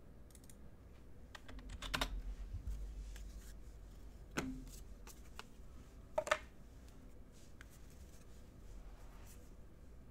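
A handful of light clicks and taps at a desk: a cluster about two seconds in, a single click near the middle, and a quick double tap about six seconds in.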